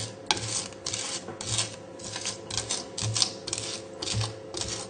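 Kitchen knife blade scraping and pressing garlic with coarse sea salt against a wooden chopping board, in short rasping strokes about three a second, as the salt grinds the garlic into a paste.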